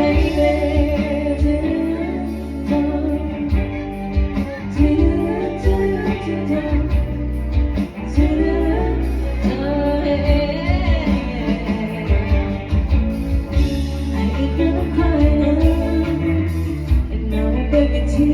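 Live band playing a song: a lead singer over strong bass and drums.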